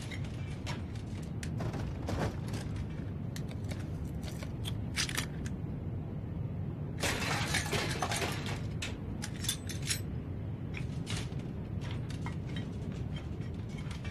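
Scrap metal clinking and clattering as junk shifts, scattered knocks over a steady low rumble, with a longer rattling clatter about seven seconds in.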